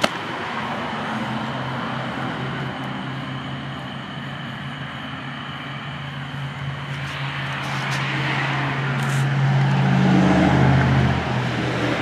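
A car engine humming steadily, growing louder over several seconds and dropping away abruptly near the end, as a car passes.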